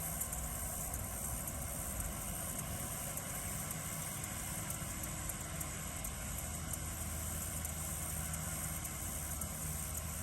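Tractor engine running steadily as it cuts hay, a low even hum. Crickets chirr in a constant high-pitched band throughout.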